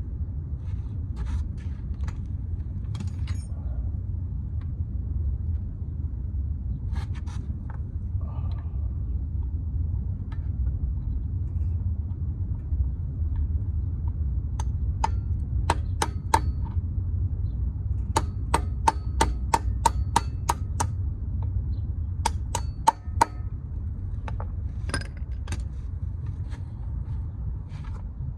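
Hand tools clicking and clanging on metal as a worn dirt bike chain guard is forced off, over a steady low rumble. About halfway through comes a quick, even run of sharp ringing metal clicks, about four a second.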